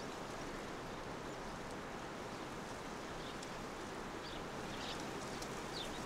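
Steady outdoor ambience with an even hiss and no clear single source, joined in the second half by a few faint, short, high chirps.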